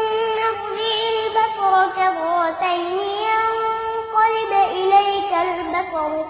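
A high voice chanting Quran recitation in the melodic tajweed style. It holds long drawn-out vowels and ornaments them with rapid turns of pitch.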